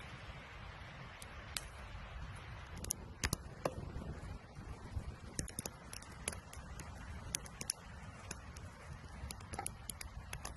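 Wood campfire crackling with sharp, irregular pops over a steady low rumble of the fire.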